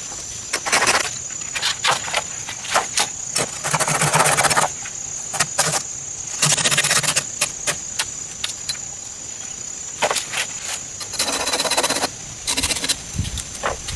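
Hand work noises: many sharp knocks and several rasping, scraping stretches of about a second each, over a steady high-pitched insect drone.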